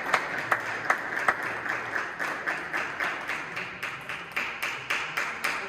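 Spectators applauding, a dense patter of hand claps that dies away near the end.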